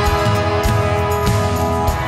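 Background music: a soundtrack song with held instrumental tones and a steady beat.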